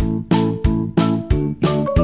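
Background music: a bright instrumental melody of short, evenly spaced notes, about three a second.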